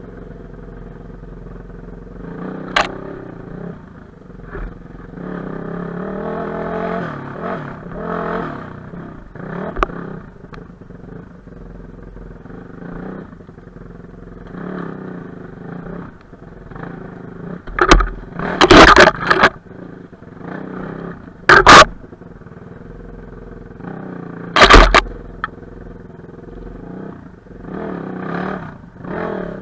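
Enduro motorcycle engine running off-road, revving up and down unevenly. Several loud sharp knocks in the second half, the loudest sounds here.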